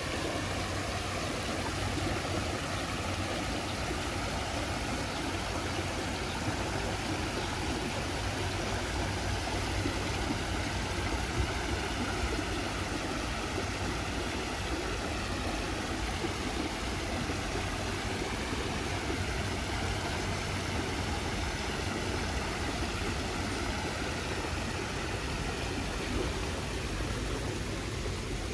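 Fountain water cascading over stepped stone ledges into a pool, a steady splashing, with a low hum of city traffic underneath.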